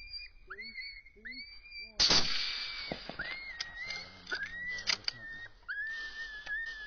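A rifle shot about two seconds in, echoing for a second or so, with a second sharp crack near five seconds, over repeated rising yelping calls from an electronic predator call.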